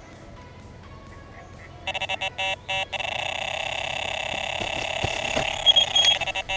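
Delkim electronic bite alarm on a carp rod signalling a run: a few quick beeps about two seconds in, then a continuous tone as a fish pulls line off the reel, with a few higher beeps over it near the end, before it cuts off suddenly.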